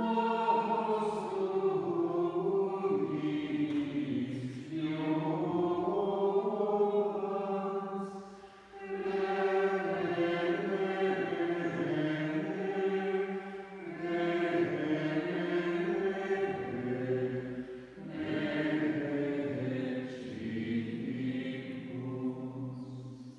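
Dominican friars singing the chant of vespers, in sung phrases broken by short breaths about every four to five seconds. The singing stops near the end.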